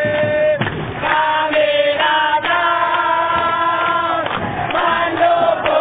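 Crowd of football supporters singing a chant in unison, in long held notes broken by short noisy bursts.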